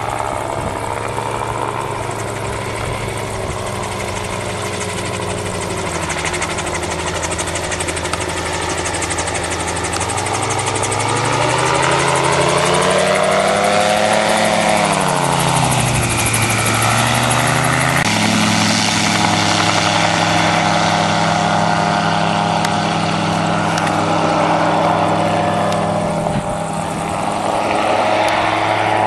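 Engine and pusher propeller of an ELA-07 gyroplane in flight, a steady drone. About halfway through its pitch rises and then drops as the gyroplane makes a low pass, and a few seconds later the sound changes abruptly.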